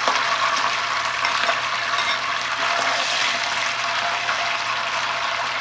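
Firm tofu cubes just tipped into hot oil in a cast-iron skillet, frying with a steady sizzling hiss and fine crackle, while a metal slotted spoon stirs them in the pan.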